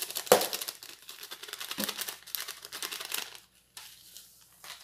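Plastic sachet of dried oregano crinkling and rustling as it is handled and shaken out over a bowl, with a sharp tap about a third of a second in. The crackling is dense for about three seconds, then thins out and goes quieter.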